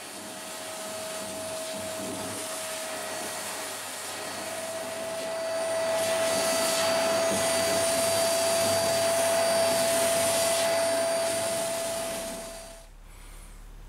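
Vacuum cleaner running steadily with a constant whine, sucking up sanding dust from the keel inside a fibreglass boat hull; it gets louder about halfway through and cuts off near the end.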